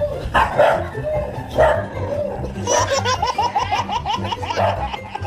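A dog barking, about one bark a second, followed by a fast run of short high-pitched calls from about halfway through.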